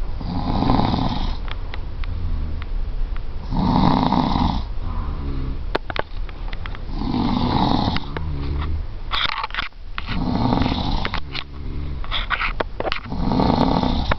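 A person snoring loudly, with a deep rasping snore about every three seconds, five in all. Between the snores come quieter, wavering breaths.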